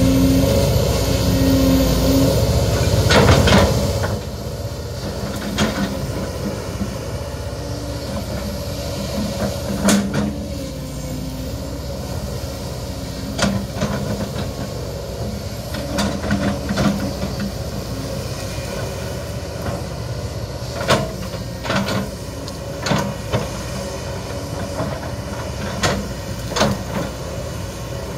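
Kobelco SK200-10 hydraulic excavator working, its diesel engine running steadily under a hydraulic whine, louder for the first few seconds. Repeated sharp knocks and cracks come from the bucket digging into soil and eucalyptus stumps and roots.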